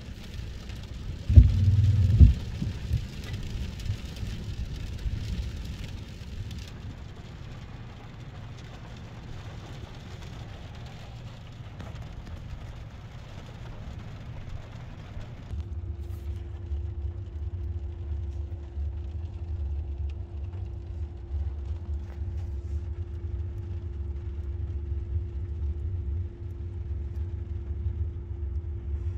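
Rough sea breaking on rocks: a steady rushing noise, with two heavy low thumps about two seconds in. About halfway it changes to a steady low rumble with a constant hum above it, inside a car.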